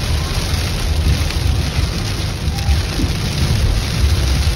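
Heavy rain pelting a car's windshield and roof, heard from inside the moving car over a steady low rumble of road noise.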